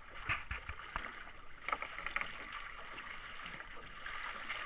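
Sea water sloshing against the hull of a small drifting boat, a steady hiss, with a few sharp knocks in the first two seconds.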